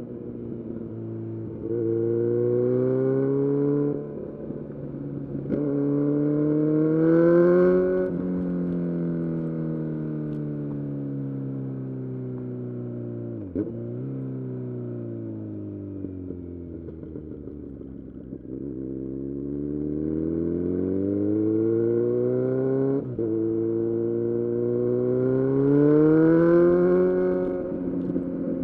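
Kawasaki Z900's inline-four through an aftermarket full-system exhaust, accelerating through a few quick upshifts. It then winds down in a long deceleration on engine braking, with a couple of short blips from downshifts. After that it pulls hard again through the gears and backs off near the end.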